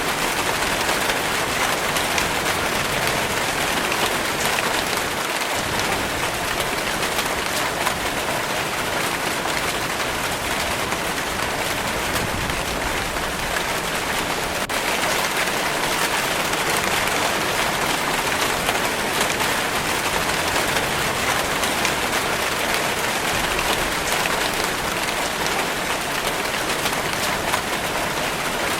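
Steady rainfall pattering on a surface, an even hiss with fine scattered drop ticks.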